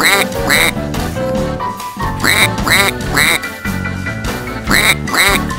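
Cartoonish duck quacks for a small yellow toy duck, about seven short squeaky quacks in quick groups of two or three, over steady background music.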